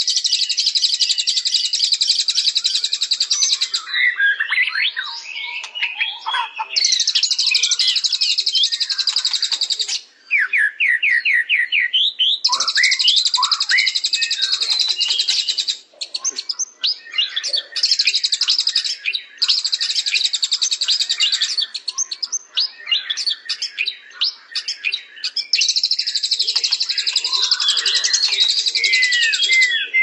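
Songbird singing continuously: long bursts of rapid, high twittering trills alternate with short runs of quick whistled notes.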